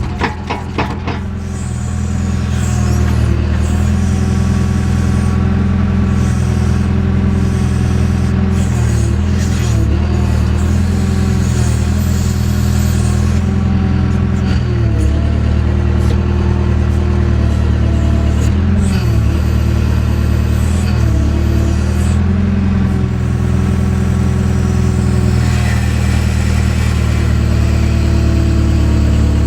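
JCB backhoe's diesel engine running steadily as it digs, its pitch dipping briefly a few times as the hydraulics take load.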